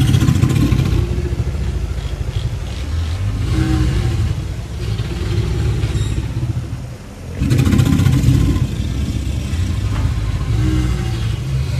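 American alligators bellowing in spring: long, low rumbling bellows with a short break about seven seconds in before the next bellow.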